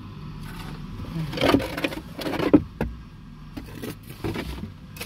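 A steady low mechanical hum, with a few knocks and scraping bursts in the middle and one sharp click just before three seconds in.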